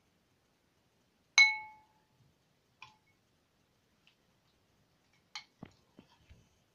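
A glass mixing bowl clinking as it is struck while slime is stirred in it: one sharp, ringing clink about a second and a half in, a lighter one shortly after, and a few quick clinks and soft taps near the end.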